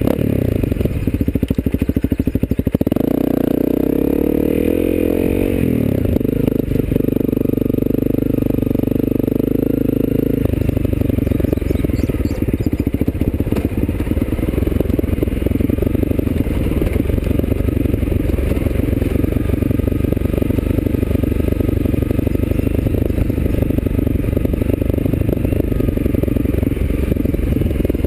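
Honda CRF250L's single-cylinder four-stroke engine, fitted with an FMF exhaust, running as the bike is ridden along a dirt trail. The engine note shifts up and down with the throttle in the first several seconds, then holds steadier and rougher for the rest.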